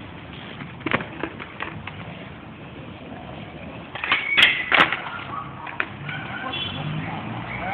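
Skateboard on street pavement: wheels rolling, with the board clacking against the ground, a few light knocks about a second in and louder knocks about four to five seconds in.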